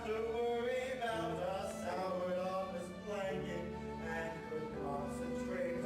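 Musical-theatre song: singing over instrumental accompaniment, running without a break.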